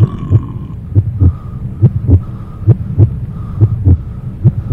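Heartbeat sound effect: paired low thuds, about one double beat a second, over a steady low drone with a faint high tone, used as a suspense cue.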